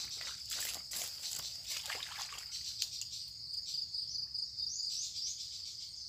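Crickets trilling steadily in a high, pulsing chorus. Over it, for the first two or three seconds, a run of rustling and splashing steps through wet grass and mud.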